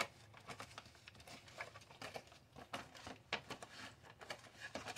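A utensil stirring a dehydrated meal in a Mylar foil bag just filled with boiling water: faint, irregular crinkling of the foil and soft scrapes and clicks from the utensil.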